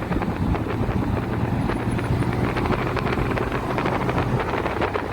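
A vehicle running, with rattling and wind on the microphone; the low hum drops away a little over four seconds in.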